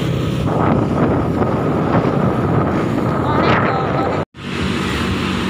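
Wind buffeting the microphone of a moving motorcycle, over the low steady hum of its engine. The sound cuts out completely for a split second about four seconds in.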